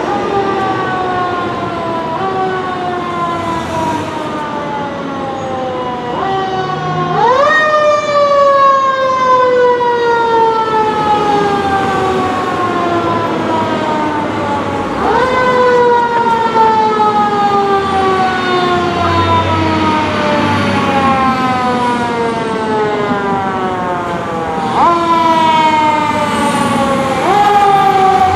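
Fire truck siren on a Pierce heavy rescue truck, its wail repeatedly winding up sharply and then sliding slowly down in pitch over several seconds. The biggest climbs come about a quarter of the way in, about halfway, and twice near the end.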